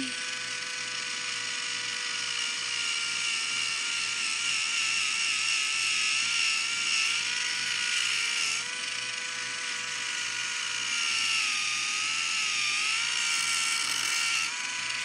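Small electric pedicure tool running on the foot: a steady motor whine whose pitch wavers and dips about twelve seconds in.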